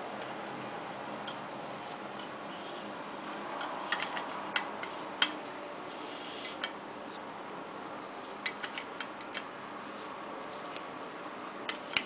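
Hard plastic clicks and taps from the parts of a Remco sawing-a-lady magic toy, a plastic doll and its plastic stand, being handled and fitted together. The clicks are scattered, in two main groups about four and about nine seconds in, over a steady hiss.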